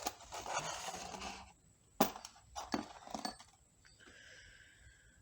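Metal transmission parts and tools being handled on a bench: scraping and rustling, then a sharp metallic clink about two seconds in and a few lighter clicks, with a faint steady hum near the end.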